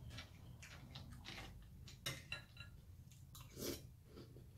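Faint close-up chewing of cereal, with a few light clicks of a metal spoon against a glass bowl.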